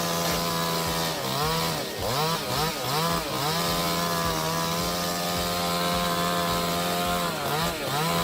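Chainsaw running at high speed, its pitch dropping and recovering several times a second or so in and again near the end as the chain loads up in the wood.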